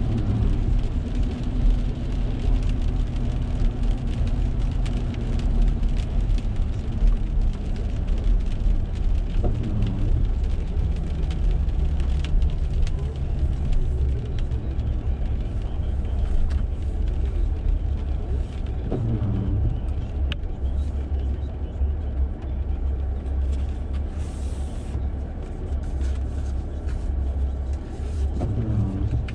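Steady low rumble of a car driving on a wet road, engine and tyre noise heard from inside the cabin.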